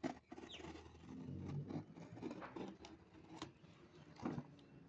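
Packaging of a newly delivered drain blaster being handled and opened: irregular rustling with scattered sharp clicks and taps.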